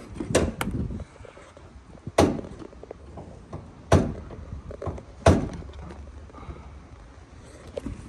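Sharp clunks and knocks of truck parts being pulled and worked loose by hand: about five separate hits a second or two apart, with smaller clicks between.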